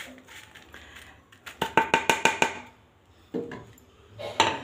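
Slotted cooking spatula rapped against the edge of a pan or plate: a quick run of about seven ringing clacks within a second, then two single knocks near the end.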